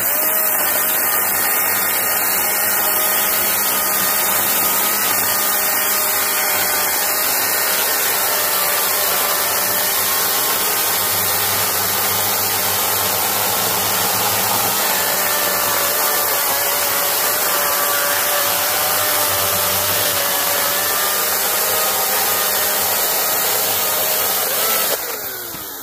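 Husqvarna Power Axe 350i battery chainsaw in its turbo (super) mode, its electric motor and chain running steadily as it cuts down through an old pine log. It runs down and stops near the end as the cut finishes.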